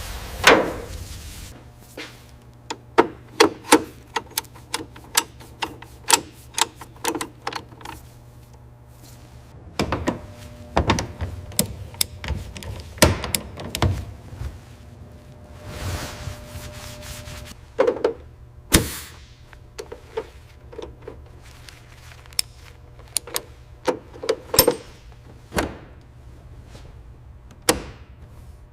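Irregular run of sharp taps, clicks and knocks, like tools and parts being handled in a workshop, with a few louder thuds among them over a faint steady hum.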